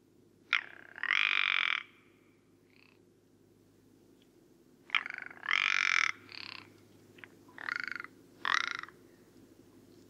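Rock ptarmigan giving harsh, rasping croaking calls: one call about half a second in, then a longer series of croaks from about five seconds in.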